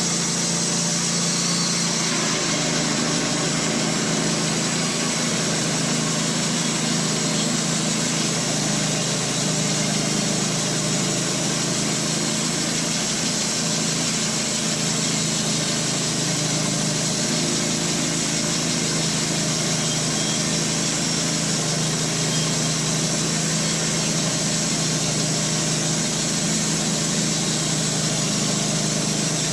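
Wood-Mizer LT15 band sawmill running steadily at an even pitch, its band blade sawing a board off a black cherry log.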